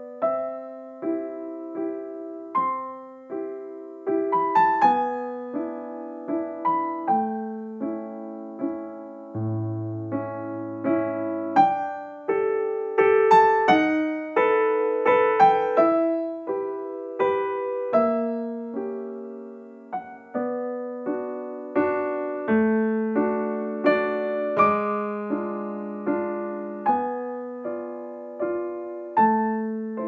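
Background piano music: a slow piece of single notes and chords struck one after another, each fading away.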